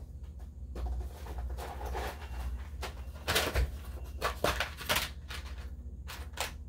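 Rummaging sounds: scattered knocks, rustles and clatters as things are moved about, in a cluster through the middle and again near the end, over a steady low hum.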